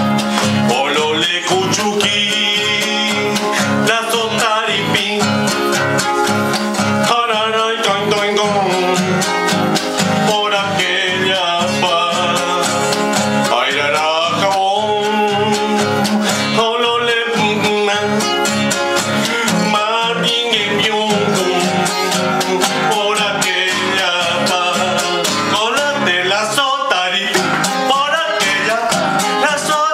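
A man singing with his own strummed nylon-string classical guitar, a steady rhythm of chords under a wavering sung melody.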